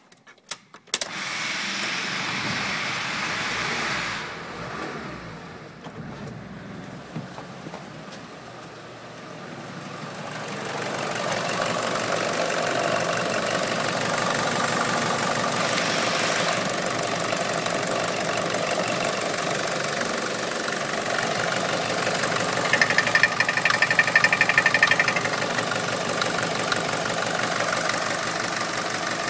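Mercedes-Benz OM601 four-cylinder diesel engine of a W638 Vito starting about a second in, then idling steadily. It is heard first from the cab, quieter for several seconds, then close up at the open engine bay. It gets louder and higher-pitched for a couple of seconds near the end.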